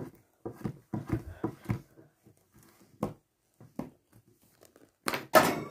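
Marker pens tapping and knocking on a wooden tabletop as they are handled: a quick cluster of light knocks in the first two seconds, two more single knocks a little later, then a louder, noisier sound near the end.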